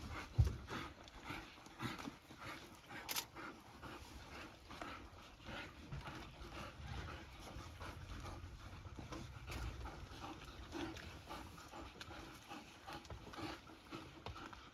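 African wild dogs feeding at a buffalo carcass: many short crackling and crunching noises and brief faint calls, over a low rumble.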